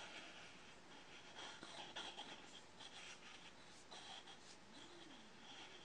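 Faint scraping and rubbing of a turned wooden ball as it is rotated by hand against a radius-checking guide with a curved metal edge.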